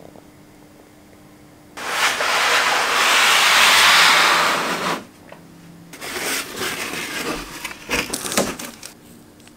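Handling of a cardboard toy box and its plastic packaging. About two seconds in comes a loud rushing hiss that swells for about three seconds and stops abruptly. Irregular scrapes, taps and crinkles follow.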